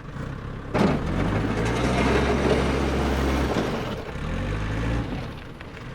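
A heavy vehicle engine running steadily, growing louder about a second in.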